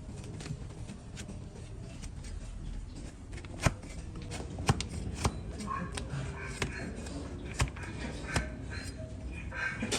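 A trimming blade shaving and cutting a donkey's hoof: continuous scraping, with several sharp cracks from the middle onward as pieces of hoof are cut away.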